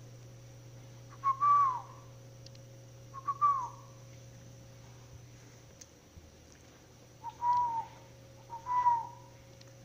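A person whistling four short notes in two pairs, each a clear note that drops in pitch at the end, over a low steady hum.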